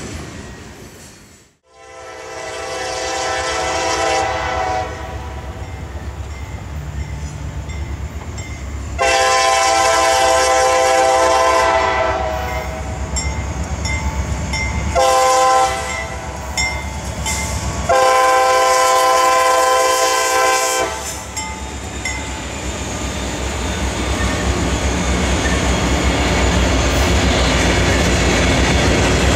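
A CSX freight locomotive's air horn sounds the grade-crossing signal, two long blasts, a short one and a long, as the train approaches, over the low rumble of the engines. Then the locomotives and a string of hopper cars roll past, wheels clacking over the rail joints and growing louder near the end. The tail of an earlier passing train fades out just before the first blast.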